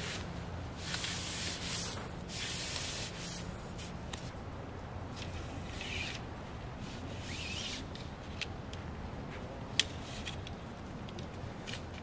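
Nylon tent fabric rustling and rubbing in several swishing bursts as a dome tent is clipped to its poles and raised, with one sharp click near the end.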